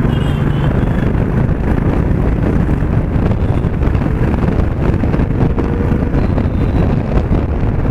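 Motorcycle engine and exhaust running steadily while riding at road speed, with wind buffeting the microphone.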